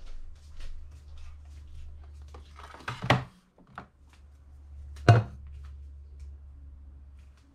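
The drip tray of a Krups Evidence Plus espresso machine slides in and knocks into place about three seconds in. About two seconds later a stainless-steel milk jug is set down with a clunk. A steady low hum runs underneath.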